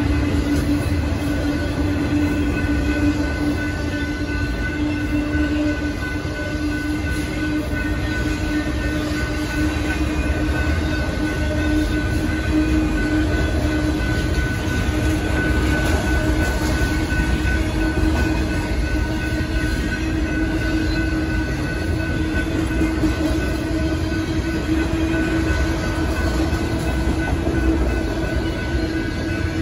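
Freight train autorack cars rolling steadily past on the rails, with a continuous rumble and wheel clatter. A steady ringing tone runs over the top the whole time.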